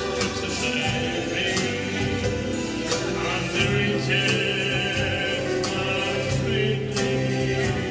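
A keyboard and a strummed acoustic guitar playing a song together live, steady and continuous.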